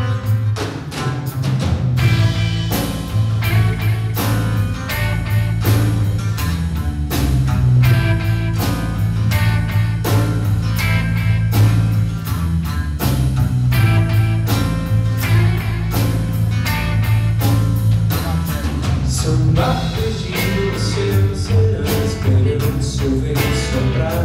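Live rock band playing with two electric guitars, an electric bass and a drum kit, over a strong bass line and a steady drum beat.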